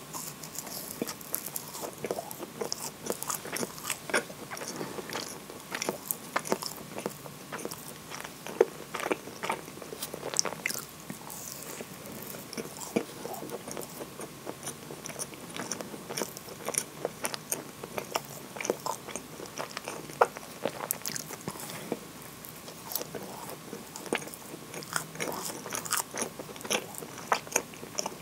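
Biting and chewing a moist chocolate scone close to the microphone: a steady run of small sharp crackles and clicks, with a few louder ones now and then.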